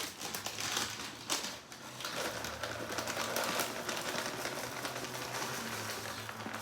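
Frozen diced onions being shaken out of a bag into a slow cooker, the hard frozen pieces falling in with rapid light clicking and rattling.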